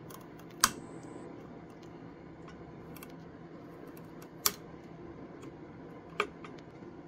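Flush cutters snipping off the Elegoo Neptune 4 Pro's Y-axis belt ends flush with the brass belt clamps. There are three sharp snips, about half a second in, about four and a half seconds in and just after six seconds, with fainter clicks of the cutters between.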